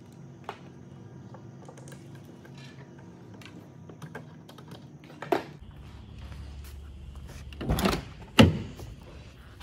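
Faint clinks of hand tools at work in an engine bay, then a car door handle is pulled and the door unlatches with two sharp knocks about half a second apart near the end.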